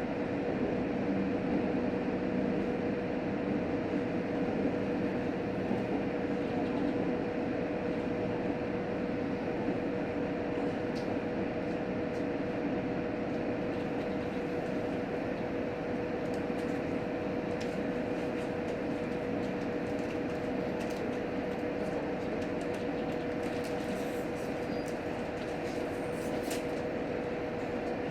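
Cabin noise inside a JR Hokkaido H100 diesel-electric railcar: a steady hum from its engine-generator and traction drive, with a lower running rumble that dies away after several seconds as the train slows for the station. A few faint clicks come near the end.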